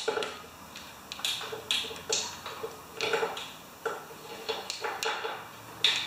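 Hands rummaging through loose ignition coils and small engine parts: irregular clinks, rattles and rustling, with a sharper clink just before the end.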